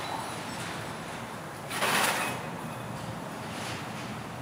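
A short scrape, metal sliding on steel, about two seconds in as a steel bush is moved on the hydraulic press bed, over steady background noise.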